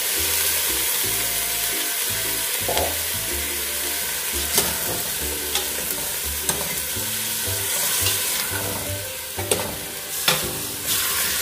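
Chicken pieces sizzling as they fry in a large aluminium pot, turned with a metal spatula that clinks against the pot several times.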